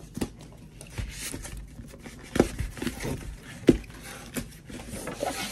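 A cardboard box being handled and worked at by hand, with a few scattered sharp knocks and light rustling of the cardboard.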